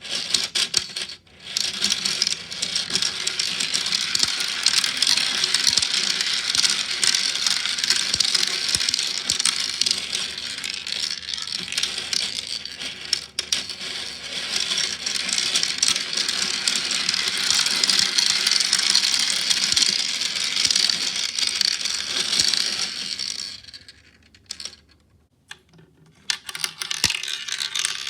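Many 6 mm balls rolling and clattering through a tiny 3D-printed plastic marble run, making a continuous dense rattle of small clicks. It breaks briefly about a second in, and near the end it dies away before starting up again.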